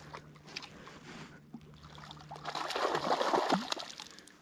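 Water splashing as a small hooked cutthroat trout is brought in at the surface, loudest in a burst about three seconds in.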